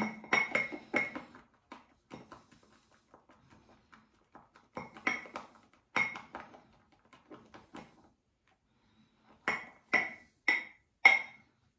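Synthetic shaving brush working a runny, over-watered shaving-cream lather in a bowl, knocking against it in ringing clinks: a quick cluster at the start, a few more midway, and four near the end about half a second apart, with faint scraping ticks between.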